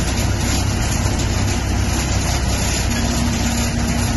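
A vehicle's engine running steadily, heard from inside the cabin as it drives through floodwater, under a constant rush of noise. A faint steady hum joins about three seconds in.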